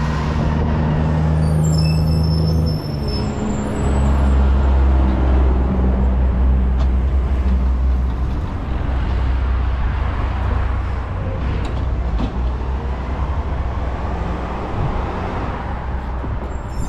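Garbage truck engine running, loud and low, dipping briefly about three seconds in, then pulling harder and gradually getting quieter.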